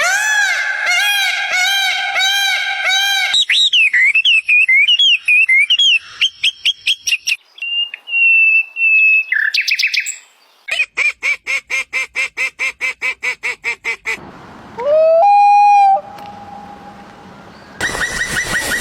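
A string of different animal calls, mostly birds, cut one after another. First comes a run of evenly repeated rising-and-falling calls, then a warbling song and a held whistle, then a fast rattle of repeated calls, and near the end a short held note.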